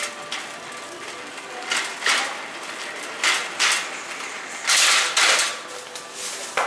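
Shopping cart rolling across entrance mats and a tile floor, its wheels and wire frame rattling in several short rough bursts, the longest a little under five seconds in.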